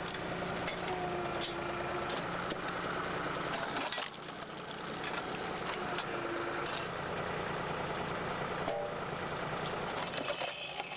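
Hydraulic log splitter running: a steady engine-and-pump drone, with a few sharp knocks and cracks as logs are split.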